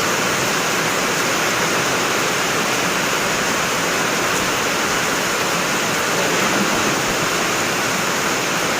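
Heavy rain pouring down in a strong wind: a steady, dense hiss.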